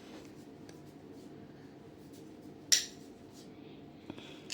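One sharp metallic clink about two-thirds of the way through, with a few faint ticks, from the metal parts of a door-lock handle set being handled, over a faint steady room hum.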